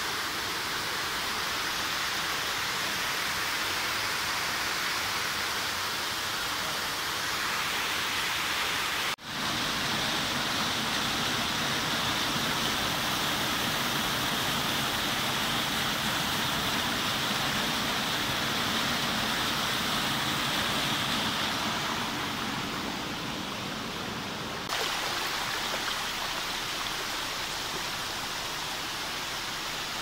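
Waterfall cascading over rock into a pool: a steady rush of water that shifts abruptly about nine seconds in and again about twenty-five seconds in.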